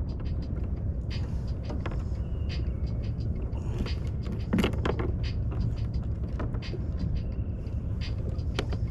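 Light clicks and taps of a small rockfish being handled and unhooked by hand, with a stronger knock about halfway, over a steady low rumble.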